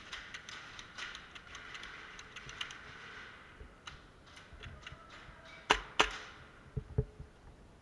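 Airsoft guns firing: a rapid, uneven spatter of small clicks and pops for the first few seconds, then two sharp, loud shots about a third of a second apart, followed by two dull thuds.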